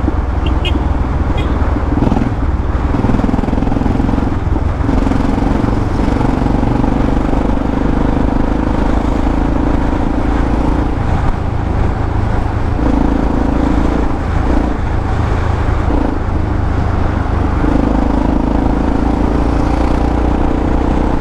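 Yamaha XT600E's single-cylinder four-stroke engine running through an aftermarket Coyote exhaust while under way, its note easing off and picking up again several times.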